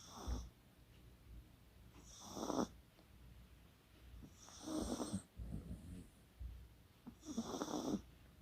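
Chihuahua snoring in its sleep: four snores, one about every two and a half seconds, each with a high, hissing edge.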